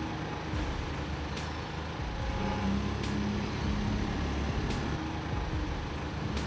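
Heavy machinery running steadily: a dense low rumble with a faint sharp tick about every 0.8 seconds.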